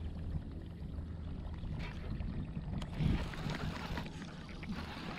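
Low, steady rumble of a fishing boat sitting on the lake, with wind on the microphone, a faint hum in the first couple of seconds and a brief louder rush about three seconds in.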